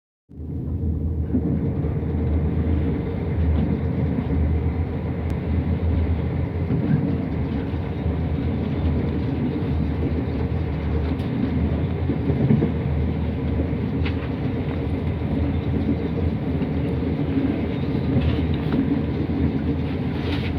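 Passenger train running at speed, heard from inside the carriage: a steady, dense low rumble of wheels on rail and running gear, with a few faint clicks.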